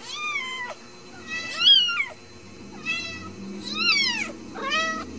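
Newborn Ragdoll kitten mewing: five short, high-pitched cries, each rising and then falling in pitch, the loudest about a second and a half in.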